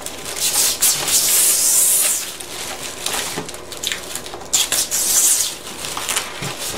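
Protective plastic film being peeled off a clear polycarbonate sheet, crackling and rustling in irregular stretches, the longest in the first two seconds and another about halfway through.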